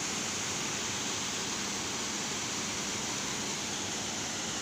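Water pouring over a dam's spillway gates and down the concrete face: a steady rush of falling water.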